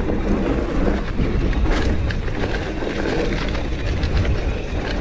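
Santa Cruz Megatower full-suspension mountain bike riding down a dry, loose dirt trail: a steady rumble of tyres on dirt and wind over the microphone, with scattered clicks and rattles from the bike.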